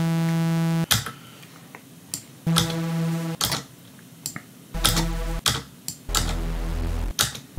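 Serum software synth playing short held notes from its basic-shape oscillators, four in turn, each under a second. The last two sit much lower in pitch as the oscillator's octave is changed. Sharp computer mouse and keyboard clicks fall between the notes.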